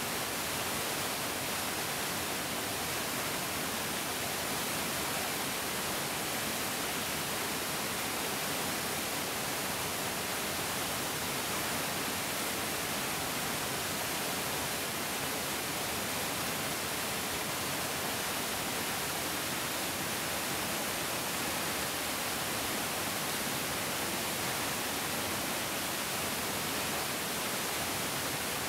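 Mountain stream rushing steadily over rocks, a constant even hiss of flowing water with no changes.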